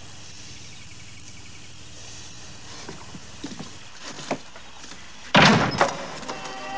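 A house door slammed shut about five seconds in: one loud bang with a second, smaller knock just after, preceded by a few faint clicks. Music begins near the end.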